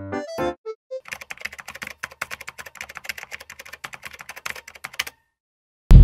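A short musical jingle ends within the first half second; then, about a second in, rapid irregular clicking like typing on a keyboard runs for about four seconds and stops suddenly, a typing sound effect over the title card.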